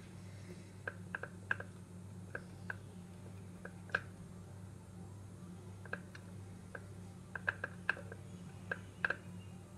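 Light, irregular clicks and taps of a silicone pastry brush dabbing oil onto dough balls against the sides and base of an aluminium baking tin, in small clusters with the sharpest about four seconds in and near the end. A steady low hum runs underneath.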